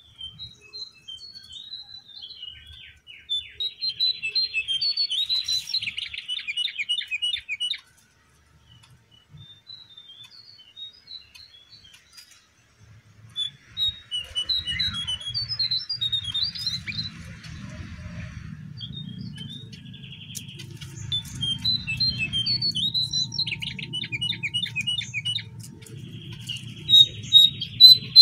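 Cingcoang coklat (jongkangan) singing: phrases of quick, high chirps and trills come again and again, with short pauses between them. A low steady rumble sits under the song from about halfway through.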